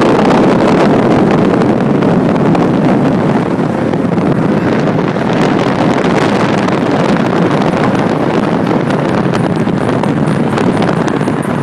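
Heavy wind buffeting on a phone microphone over the steady noise of a passenger car running close by.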